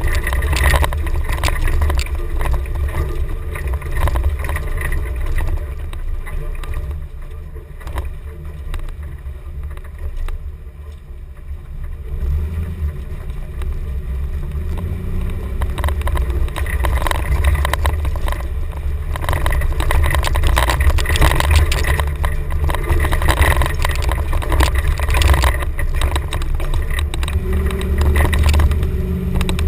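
A 1990 Chevrolet K5 Blazer driving off-road on dirt: a deep engine and drivetrain rumble with frequent knocks and rattles, quieter for a few seconds in the first half and louder through the second half.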